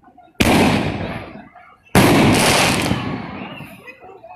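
Two aerial firework shells bursting about a second and a half apart, each a sudden loud bang that trails off over a second or more; the second bang is slightly the louder.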